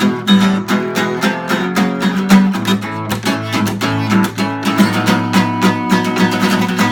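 Acoustic guitar strummed in a brisk, steady rhythm, playing an instrumental break between verses of a song.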